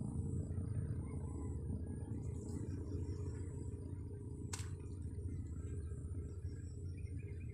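Steady low rumble of wind on the microphone by the sea, with one sharp click about four and a half seconds in.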